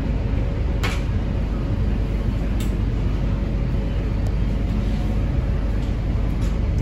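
MTR Kwun Tong Line C-train running underground, heard inside the passenger car: a steady low rumble from wheels and running gear, with a few sharp clicks.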